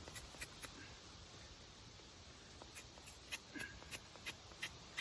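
Hand-held bicycle mini pump being worked to inflate an inner tube, each stroke giving a short click: a few in the first second, then a steady run of about three a second in the second half.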